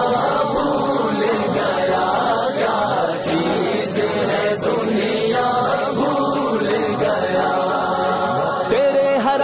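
Several voices chanting together in a choir-like vocal backing to an Urdu naat, sustained and overlapping between sung verses.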